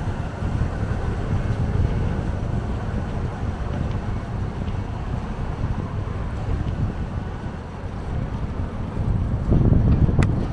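Wind buffeting the microphone of a moving bicycle, a low rumble over street noise, swelling briefly near the end, when a single sharp click sounds.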